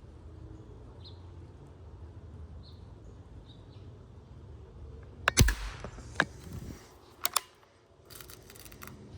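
Daisy Powerline 880 multi-pump air rifle firing a single shot, a sharp crack about five seconds in, followed by several mechanical clicks and a quick run of rattling clicks from the rifle's action.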